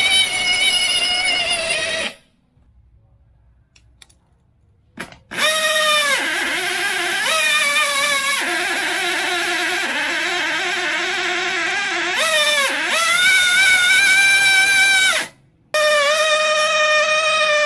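Tiny two-stroke nitro model engine running at high revs as a high whine, driving a small water pump; several times its pitch drops sharply and climbs back as it bogs under the pump's load. It cuts out twice, once for about three seconds and once briefly, and then runs again. The engine is too small to pull the pump: it runs unloaded but stalls under load.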